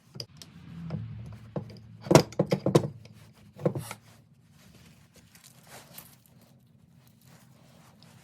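Small parts being handled during the engine's reassembly: a quick run of sharp clicks and light knocks about two seconds in, and a shorter one about a second later, over a faint low hum.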